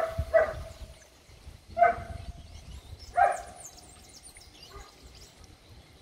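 A dog barking, four short barks within the first few seconds, followed by faint high chirps of small birds.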